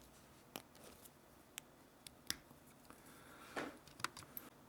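Faint scattered clicks and a short scrape of hands working at a disposable electronic cigarette's casing, peeling its cover off and prying the top off.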